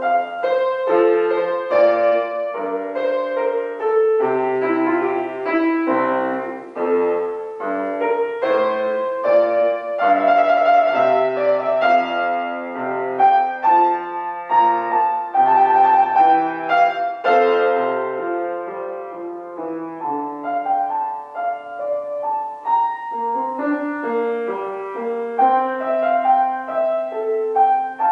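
Grand piano played solo: a classical piece with a melody over a moving accompaniment, note after note.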